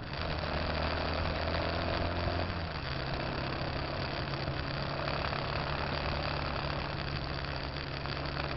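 Motorcycle engine running while riding, over a steady rush of wind and road noise. The engine note drops slightly about two and a half seconds in.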